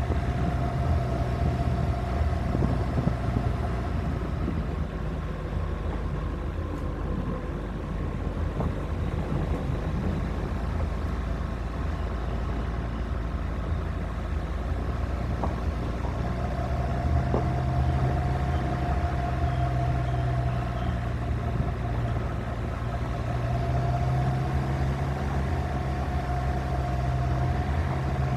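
Suzuki Grand Vitara SUV driving on a gravel road: steady engine hum over tyre rumble, heard from a camera on the car's roof. The engine note grows stronger about halfway through.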